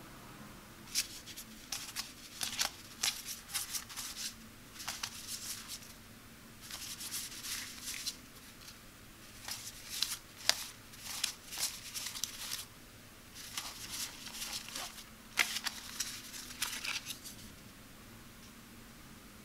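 Hands handling the Circuit Maze game's pieces and packaging: clusters of sharp clicks and quick rustles, starting about a second in, with short pauses between the clusters.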